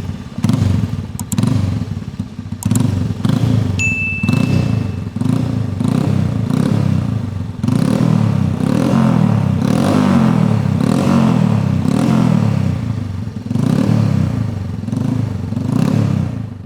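Indian Challenger motorcycle's V-twin engine running loudly, its sound swelling and easing about once a second, then fading out at the end.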